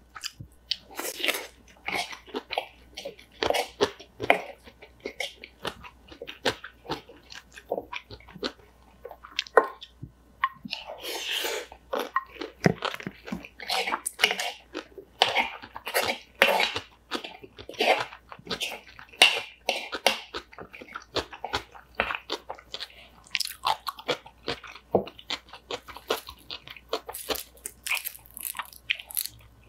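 A person chewing and crunching mouthfuls of bibimbap made with crisp raw seasoned cucumber and pickled cucumber, picked up close: a quick, continuous run of crunches with wet chewing in between.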